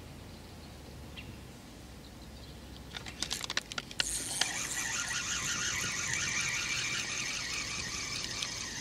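A few sharp clicks as the feeder rod is handled, then a spinning reel being cranked steadily, its gears whirring with a fast even ripple, as line is retrieved after a bite on the quivertip.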